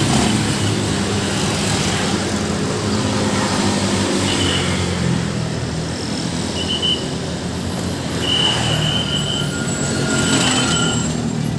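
Busy road traffic: heavy vehicles such as buses and trucks running past with steady engine and tyre noise, with a few brief high-pitched squeaks over it.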